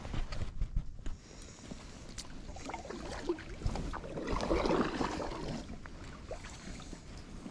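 Kayak paddle strokes: the blade dipping and pulling through the water with splashing and drips, with a few light knocks near the start.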